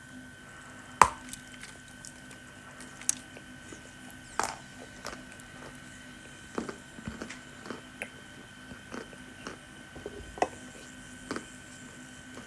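Wet edible clay being bitten and chewed close to the microphone: irregular sharp crunches and soft squishes, the loudest about a second in.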